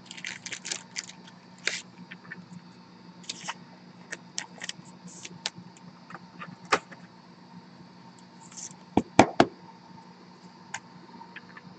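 Plastic card holder and trading card being handled: light scattered clicks and rustles, with a few louder sharp clicks about nine seconds in.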